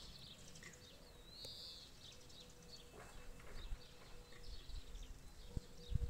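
Faint outdoor ambience of birds chirping, with a swooping call about a second and a half in. Under it are low wind rumble on the microphone, building toward the end, and a faint steady hum.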